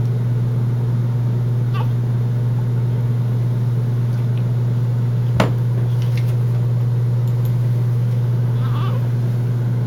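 Steady low hum, with a baby's faint, brief whimpers near the start and near the end and a single sharp click about halfway.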